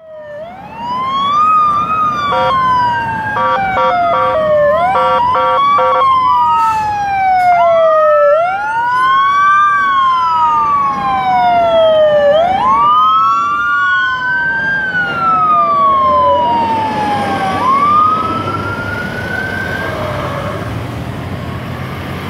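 Fire apparatus sirens wailing on an emergency response, each cycle rising quickly and then falling slowly in pitch, with two sirens overlapping. A series of short horn blasts sounds between about two and six seconds in, and the sirens fade a little near the end.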